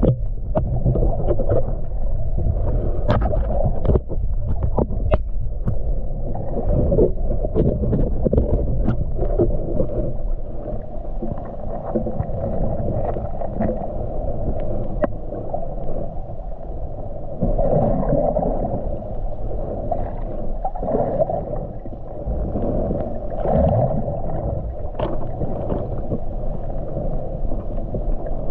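Muffled underwater sound picked up by an action camera held just below the water's surface: a steady low rumble of moving water with scattered small clicks and gurgles, swelling a little now and then.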